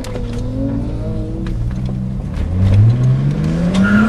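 Race car engine heard from on board, holding a fairly steady note through a bend, then revving up with a smooth rise in pitch from about two and a half seconds in as the car accelerates onto the straight. Scattered short clicks and rattles sound over it.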